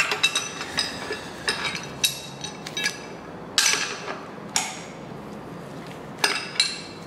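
Steel hand wrenches clinking and tapping against the bolts and steel arms of an engine stand adapter as the bolts are tightened, about ten sharp metallic clinks at irregular intervals, each with a short ring.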